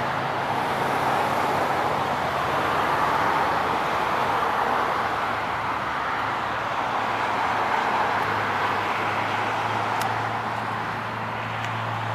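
The mower's 21 HP Kawasaki engine running steadily at a low, even speed.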